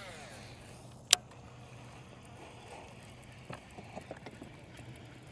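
A fishing reel's spool whirring down as a cast ends, then one sharp loud click about a second in as the reel is engaged, and a few faint clicks as the crankbait is reeled in, over a low steady hum.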